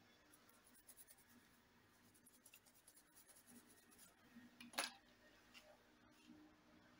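Faint, scratchy rustling of a small paintbrush's bristles being swept over a laptop keyboard, with one sharp tap a little under five seconds in.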